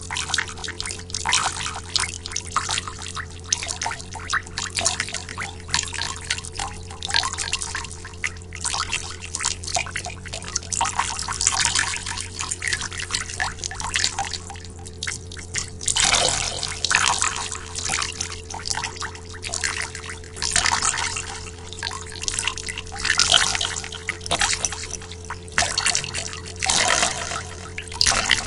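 Water dripping fast and irregularly, with many high-pitched, echoing drops. A faint steady hum runs underneath.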